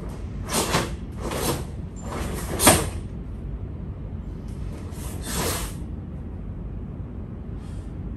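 Karate gi swishing and snapping with fast strikes and blocks: four quick rushes of cloth, the sharpest and loudest about two and a half seconds in, and a fainter one near the end. A steady low hum runs underneath.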